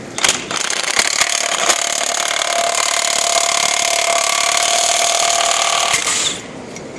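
Cordless impact wrench hammering as it drives a chain-type snap pipe cutter, the cutter wheels biting into a rusty steel pipe. It starts with a few sharp hits, runs steadily for about six seconds, then stops suddenly as the pipe parts.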